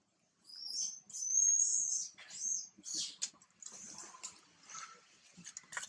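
Infant macaque giving a run of high, thin squeals, the loudest about a second and a half in, followed by fainter scuffling and small sounds as an older juvenile grabs at it beside its mother.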